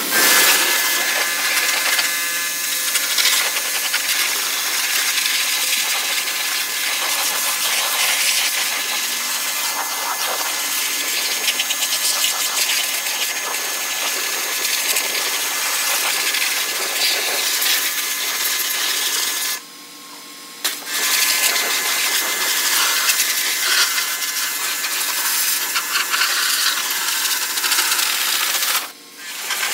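Pressure washer jet spraying water over a car's engine bay, a loud steady hiss. It cuts out for about a second roughly two-thirds of the way through, and again briefly near the end.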